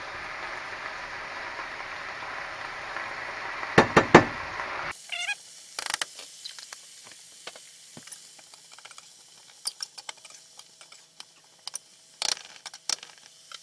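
Vegetables sizzling in oil in a stainless steel skillet, with a few clinks of a spoon against the garlic jar about four seconds in. About five seconds in the sizzle drops away abruptly. Scattered clicks and scrapes of a fork stirring in the pan follow, the loudest near the end.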